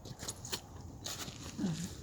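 A person eating hot noodles: short clicking and smacking eating noises, with a brief low "mm"-like voice sound about one and a half seconds in.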